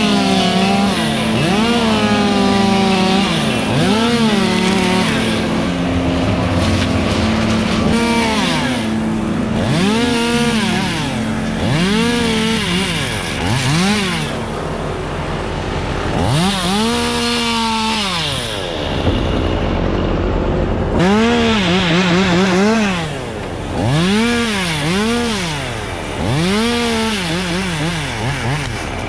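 Two-stroke chainsaw running hard, its engine pitch rising and falling over and over, about once every two seconds, as it revs and cuts wood. About two-thirds of the way through it briefly drops to a lower, steadier note before revving again.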